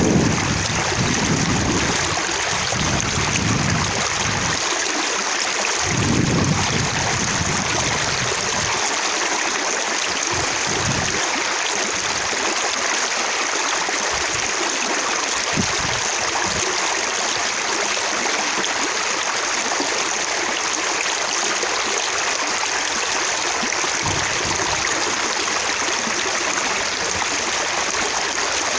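Flowing water splashing steadily, with droplets spattering. A low rumble of wind on the microphone comes and goes in the first few seconds.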